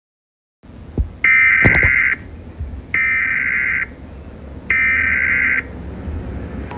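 Three Emergency Alert System SAME header data bursts: buzzy digital tones just under a second each, about a second apart, over a low hiss. The two-tone EAS attention signal begins right at the end.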